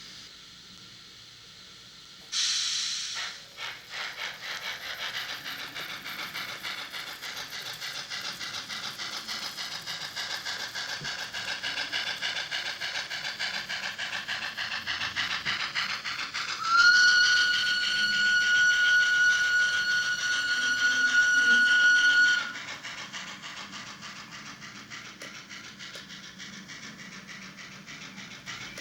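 Digital steam-locomotive sound (a Kittel steam loco sound file) from a model railcar's LokSound Micro decoder, played through its small oval speaker. A burst of steam hiss about two seconds in, then fast, even chuffing that slowly grows louder. A long steady steam whistle is held for about five seconds, then the chuffing carries on more softly.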